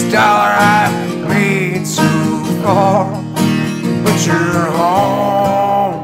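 Country-style music with guitar, and a melody line that slides between long held notes.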